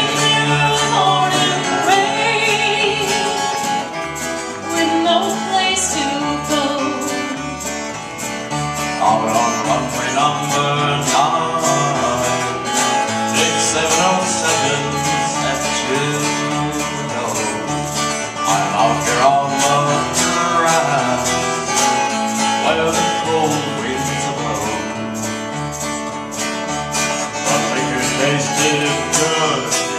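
Live folk song: an acoustic guitar strummed in a steady rhythm over an electric bass line, with a man singing.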